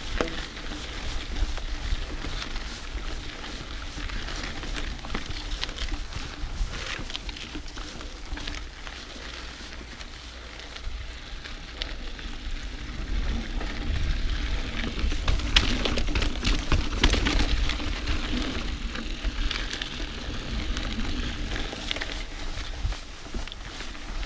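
Mountain bike ridden along a dirt cross-country trail: tyre noise and rattling of the bike over the ground, with wind rumble on the camera microphone. It gets louder and rougher about 14 seconds in, easing off near the end.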